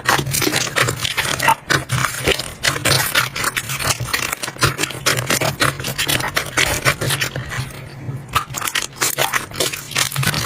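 Slime being squished and pressed by hand: a dense, continuous run of wet crackles and small pops, easing briefly near the end, over a low steady hum.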